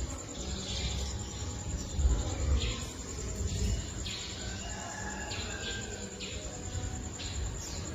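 Birds calling: short high chirps repeat every half second to second, over faint low cooing of a spotted dove (tekukur). A low rumble, loudest about two seconds in, sounds like wind on the microphone.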